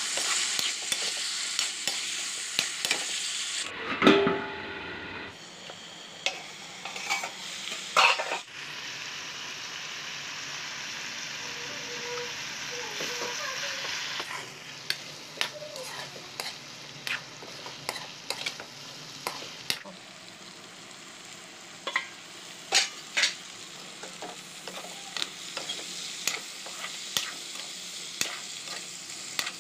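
Mutton and onions frying with a steady sizzle in an oiled steel wok, stirred with a metal spatula that clicks and scrapes against the pan. A few louder knocks of the spatula on the wok stand out.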